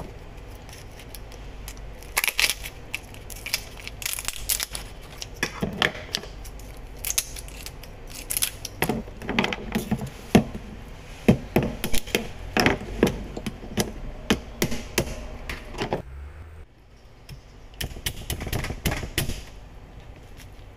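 Kitchen scissors and a knife cutting through the shells of boiled mud crabs on a cutting board: irregular sharp cracks, snips and knocks, with a short lull about three-quarters of the way through.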